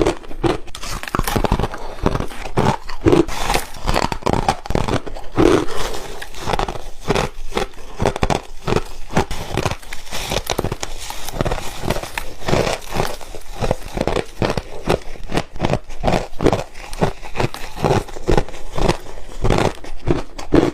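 Hard refrozen ice being bitten and crunched close to the microphone: a rapid, continuous run of sharp cracks and crunches, falling into about two to three bites a second toward the end.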